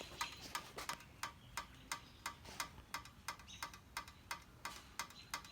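Steady, even ticking, about three ticks a second, with a faint high whine briefly near the start and again in the second half.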